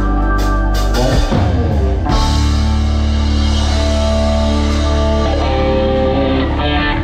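Live band playing during a soundcheck: electric guitar and bass holding long sustained chords over a drum kit, with a few drum hits in the first two seconds.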